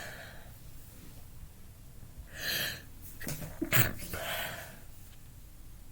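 A woman in a sneezing fit: a gasping breath in about two and a half seconds in, then a short, sharp sneeze just under four seconds in, followed by a breath out.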